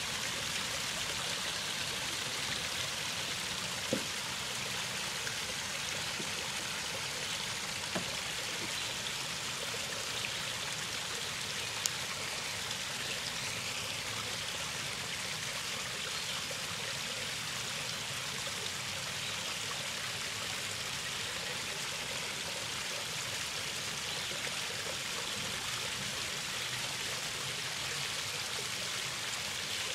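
Small rock waterfall splashing steadily into a backyard koi pond, with a few faint clicks in the first half.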